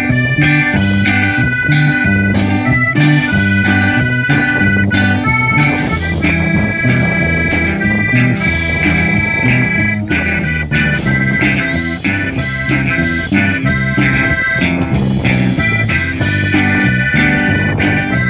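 Live waila (chicken scratch) dance band: an accordion plays the melody in held chords over a stepping bass line and drum kit, keeping a steady dance beat.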